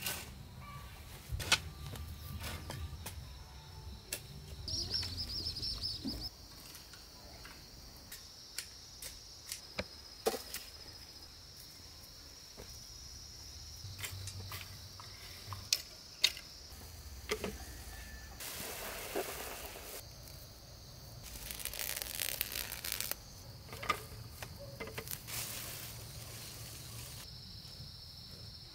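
A hoe striking and scraping loose, dry soil, with scattered sharp strikes and a few longer scraping passes, over a steady high drone of insects. A bird chirps briefly about five seconds in.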